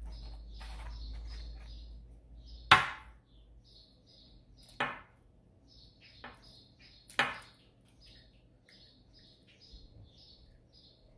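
An egg cracked against the edge of a bowl: a few sharp knocks, the loudest about three seconds in. A bird chirps over and over in the background.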